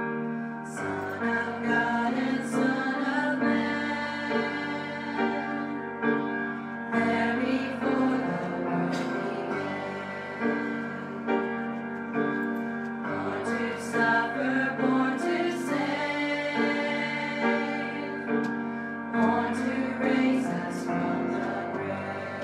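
A women's choir singing a sacred song together, accompanied by a grand piano.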